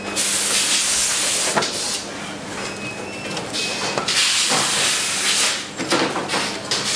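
Compressed-air hiss in bursts of one to two seconds from pneumatic assembly equipment, over a steady low hum, with a few sharp clicks.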